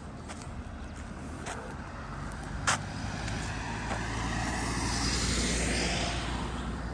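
A small cab-over truck drives past on the road, its engine rumble and tyre noise swelling to a peak about five seconds in and then fading. Light clicks recur at an even pace, with one sharp click a little before halfway.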